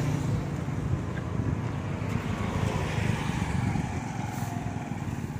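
Road traffic: a motor scooter's engine running as it passes on the road, its note falling slowly, over a steady low rumble.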